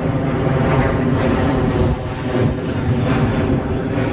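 Airplane flying low overhead, its engines making a loud, steady sound with a pitched buzz.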